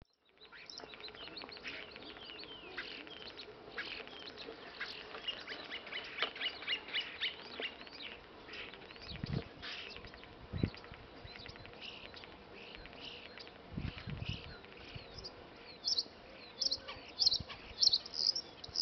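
Common starling singing: a rambling, varied run of whistles, clicks and rapid chattering, with louder high whistles near the end.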